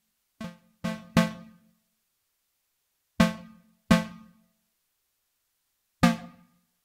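Cherry Audio Octave Cat software synthesizer, an emulation of the 1976 Octave CAT, playing a pluck preset. Six short notes sound in an uneven rhythm, each starting sharply and dying away quickly.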